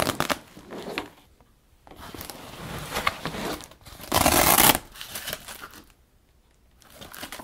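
Fabric panel of a Puluz portable photo light box rustling and crinkling as it is handled, with a loud hook-and-loop (Velcro) rip lasting about half a second around four seconds in.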